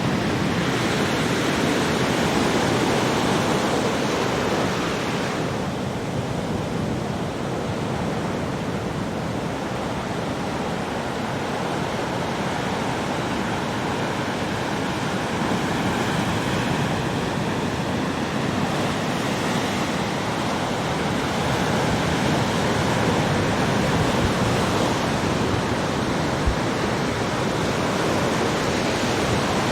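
Ocean waves breaking and washing on a beach, a continuous surf rush that swells and eases slowly.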